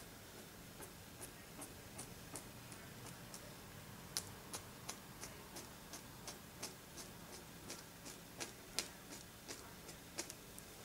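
Faint, evenly spaced clicks of a wooden toothpick tapping and dragging on a plastic-covered board, about three a second, as wet glue is drawn down into icicle points. The clicks stop near the end.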